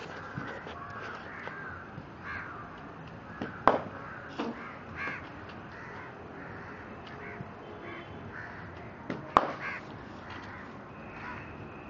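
Crows cawing again and again. About nine seconds in, the loudest sound: a sharp crack of a cricket bat striking the ball, with a smaller knock about four seconds in.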